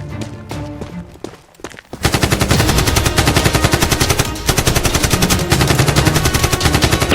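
Background music, then about two seconds in a loud, sustained stream of rapid automatic gunfire, shot after shot for about five seconds.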